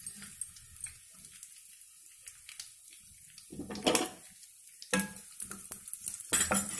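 Cashews, raisins and almonds sizzling quietly in ghee in a kadai, with a spatula knocking and scraping against the pan: a louder scrape about four seconds in and busier stirring near the end.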